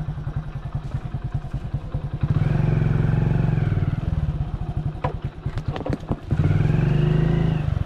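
Motorcycle engine idling with an even thudding beat, revved twice, each time for about a second and a half, a couple of seconds in and again near the end. A few sharp clicks come between the revs.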